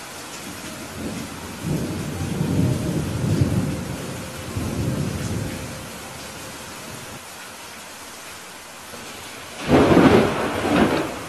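Steady rain hiss with thunder: a low rumble from about a second and a half in that fades a few seconds later, then a louder, sharper thunderclap near the end.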